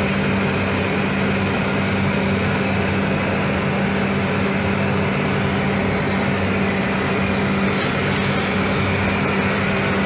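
Paint spray booth's ventilation fans running: a steady rush of moving air over a constant low hum.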